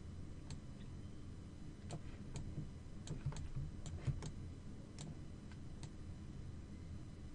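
Sparse, irregular light clicks from computer controls being worked, about a dozen, over a low steady hum.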